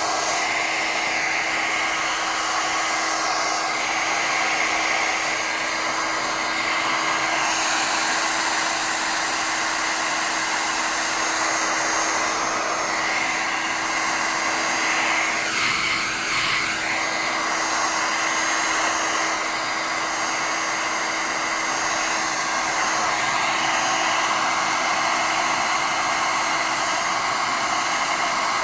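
Steady rush of air from a small electric blower motor, with a constant motor hum. The sound shifts briefly about halfway through, then runs on unchanged.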